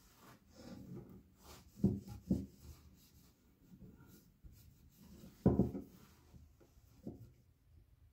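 A cloth rubbing over a metal bayonet and scabbard on a wooden workbench. There are a few sharp knocks as the metal bumps the bench top: two close together about two seconds in, two more about five and a half seconds in, and one about seven seconds in.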